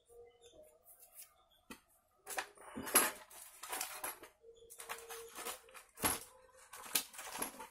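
Metal parts clinking, tapping and scraping in several short irregular bursts as valve-train parts are fitted into an aluminium motorcycle cylinder head and the head is handled.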